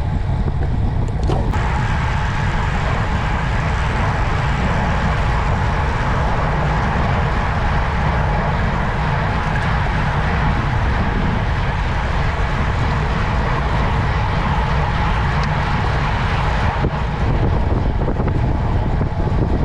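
Vehicle engine drone mixed with wind rushing over the microphone while riding at speed, steady throughout, with a hissier stretch through most of the middle.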